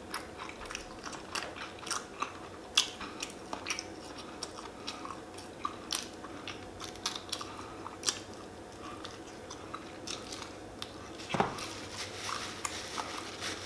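Close-miked eating of a fried chicken wing: biting and chewing, with irregular small crunches and wet mouth clicks.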